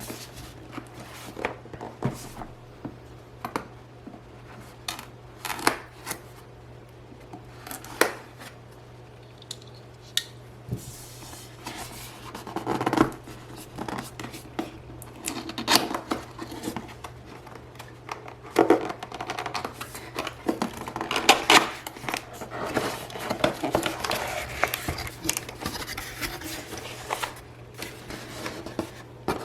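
Spyderco Southard folding knife slicing through packing tape and cardboard on a box, with scratching, tearing and knocks as the box is worked open. Short scrapes and clicks come sparsely at first and grow busier about halfway through.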